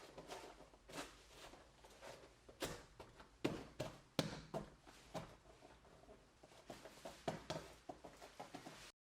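Irregular knocks and taps of foam floor mats being handled and laid on a hard floor, the loudest a few seconds in; the sound cuts off suddenly near the end.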